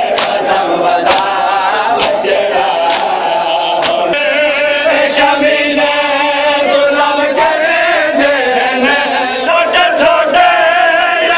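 Men chanting a noha, a Shia lament, in unison, with loud chest-beating (matam) strikes keeping time about once a second. About four seconds in, the reciters' amplified voices come to the fore and the strikes grow fainter.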